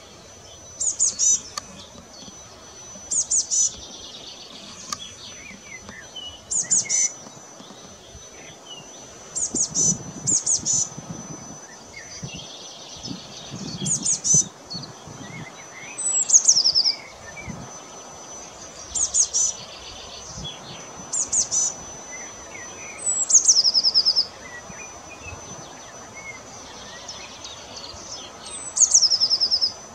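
Eurasian blue tit singing: a dozen short, very high-pitched phrases about two seconds apart, some ending in a fast falling trill.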